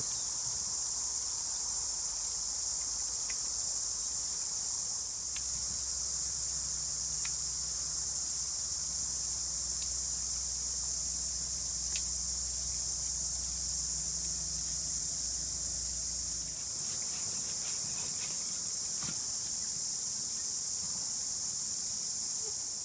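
Loud, unbroken chorus of cicadas, steady and high-pitched. A few faint clicks of sticks being handled come through it, and a low steady hum runs under it for about ten seconds in the middle.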